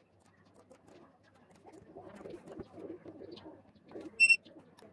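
A single short electronic beep from the RFID card reader a little after four seconds in, as a card is presented to it. Before it, low pulsing sounds in the background.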